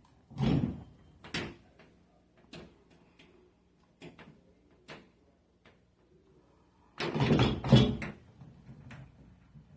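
A series of separate knocks and clunks, a loud one about half a second in and a louder cluster of clattering near the end.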